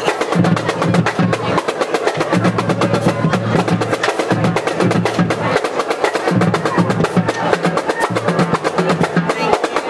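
Band music driven by fast snare drumming, with low held notes that come and go.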